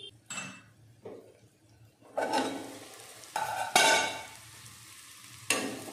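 Cluster beans curry sizzling in an aluminium kadai while a metal spoon stirs it. From about two seconds in, the spoon scrapes the pan in a few separate strokes over a steady sizzle.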